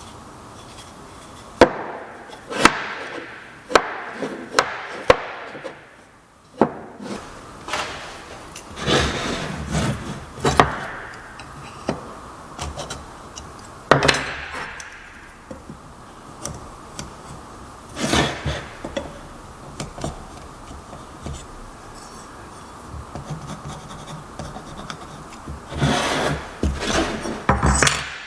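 Wooden pieces being handled while a joint is worked: several sharp wooden knocks in the first few seconds, then repeated rubbing and sliding of wood on wood, with a longer stretch of rubbing near the end.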